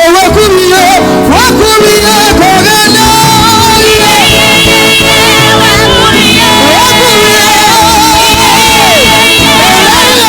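Gospel praise music played loud: voices singing with vibrato and sliding notes over a backing band.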